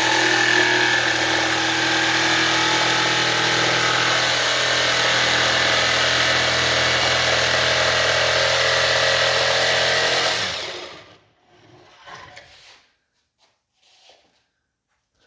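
Power tool running steadily under load while cutting a push bar, shut off about ten and a half seconds in and dying away. A few faint knocks follow.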